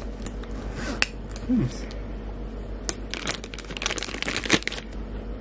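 A few sharp clicks of small items being handled, then a dense run of crinkling from a clear plastic bag being handled, the bag holding a shoulder strap with a metal clip, over a steady low hum.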